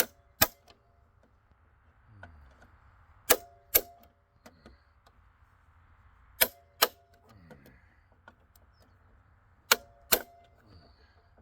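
Cordless impact driver on tight steel screws, pulsed in short bursts: pairs of sharp metallic clacks about every three seconds, each followed by a brief falling whine. The bit is slipping and spinning in the screw heads rather than breaking them loose.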